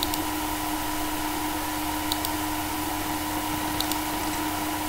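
Steady hiss with a constant electrical hum from a computer recording setup, and three short computer-mouse clicks spread through it.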